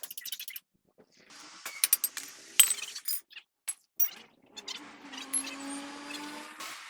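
Metal tools and parts clinking and knocking during repair work, with a sharp knock about two and a half seconds in, and a faint hum and hiss between the strikes.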